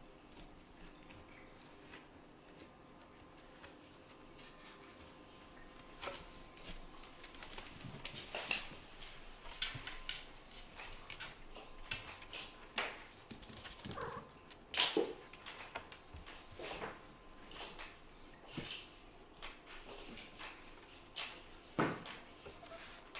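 Scottish Fold–British Shorthair kittens play-wrestling: short scuffling knocks and scrapes, with several brief high squeaky cries. The first few seconds hold only a faint steady hum before the scuffling starts.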